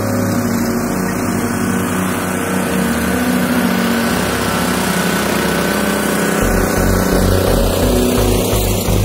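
Small engine of a walk-behind tiller with steel wheels and a ridging plough, running steadily under load as the plough cuts between crop rows. About six and a half seconds in, a heavier, deeper pulsing beat comes into the engine sound.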